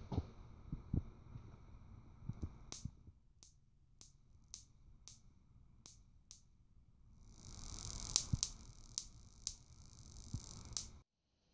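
Static-electricity sparks snapping from a fingertip to the metal screw of a light-switch plate, a sharp tick about every half second, the body charged to several thousand volts by a shoe-enclosed static generator. A faint hiss rises under the later sparks, and a few soft knocks come at the start.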